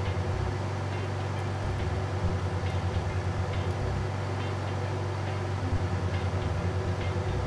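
Steady low hum of a laminar-flow clean bench's blower, with a few faint light clicks from a small screwdriver turning the top screw on a laptop hard drive's spindle.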